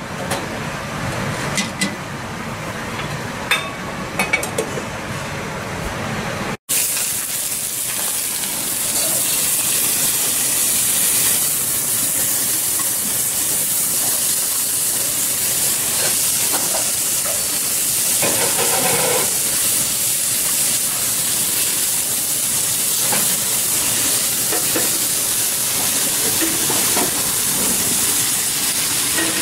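Pork pieces frying in a pan on a gas range: a moderate sizzle with a few sharp clicks at first, then, after a brief dropout about six seconds in, a loud, steady, high sizzling hiss.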